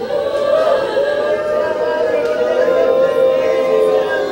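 Group of voices singing slow worship music, holding long notes that shift only slowly in pitch.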